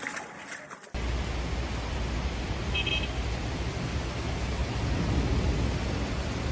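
Steady rushing storm noise, heaviest in a low rumble of wind on the microphone, with a short faint beep about three seconds in.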